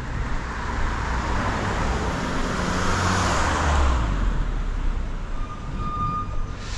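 A car passing on the road, its tyre and engine noise swelling to a peak about three seconds in and then fading away.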